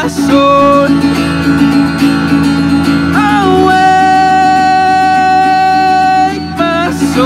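A man singing held notes over a strummed Gretsch acoustic guitar fitted with a capo. One long note is held from about three seconds in until past six seconds, with shorter notes before and after it.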